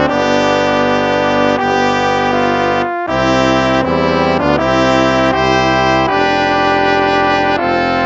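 Instrumental hymn played on brass instruments in slow, sustained chords that change about once a second, with a short break between phrases about three seconds in.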